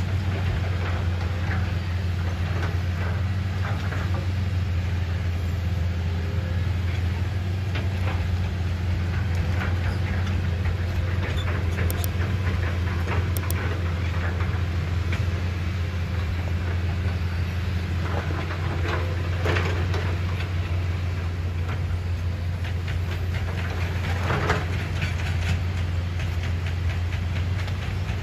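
Hitachi hydraulic excavator's diesel engine running steadily, with occasional knocks and clanks as it digs and moves on its steel tracks.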